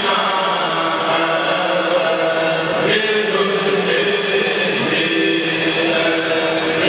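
A kourel of men chanting a Mouride khassida together into microphones, in long held, melismatic notes; a new phrase begins about three seconds in.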